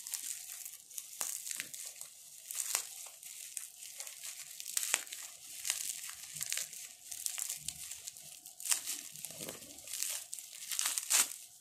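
Plastic bubble wrap crinkling and rustling as it is handled and unwrapped by hand, full of sharp crackles, the loudest near the end.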